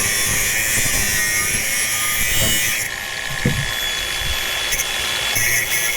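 Angle grinder cutting into a rusty steel exhaust pipe, a loud steady hiss. About three seconds in the cutting noise drops away and the grinder runs on more quietly.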